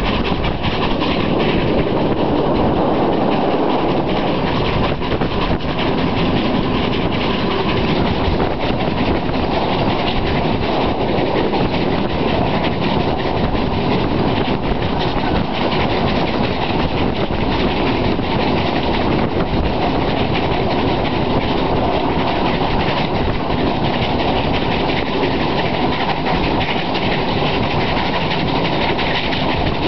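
Passenger train hauled by an Ol49 steam locomotive running steadily, heard from a carriage window: continuous rushing wheel and rail noise with the clickety-clack of wheels over rail joints.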